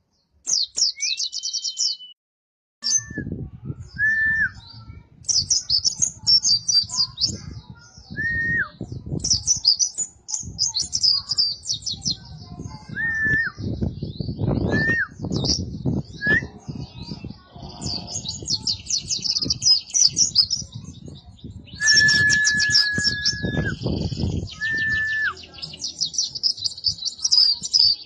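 Pleci dakun white-eye singing: rapid high twittering phrases repeated over and over, with short clear whistled notes at a lower pitch now and then, one of them held for about two seconds. A low rumbling noise runs underneath from about three seconds in.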